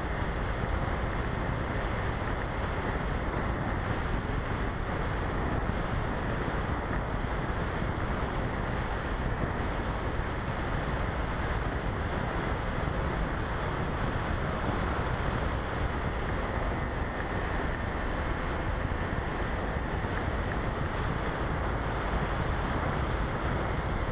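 Steady rush of airflow over the microphone of a small 808 #16 keychain camera on an RC Easy Glider in flight, with no motor tone standing out.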